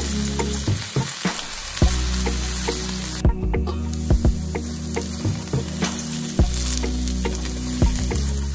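Diced red potatoes sizzling in hot oil in a nonstick pan, stirred with a wooden spatula that gives frequent sharp clicks against the pan. The sizzle drops briefly about three seconds in as a metal lid is held over the pan.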